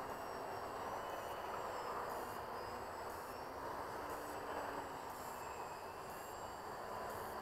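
Electric motor and propeller of an RC plane droning in flight, its pitch slowly wavering as it flies around, over a steady hiss.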